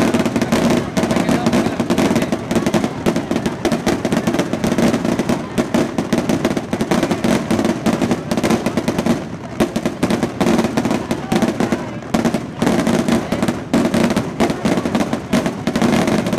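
Fireworks and firecrackers going off in a dense, continuous barrage of rapid bangs and crackles, many a second, with no pause.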